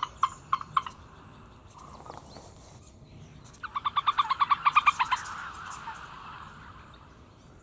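An animal call at the pond: a few scattered short notes in the first second, then about three and a half seconds in a fast run of short pitched notes, about ten a second, lasting about a second and a half.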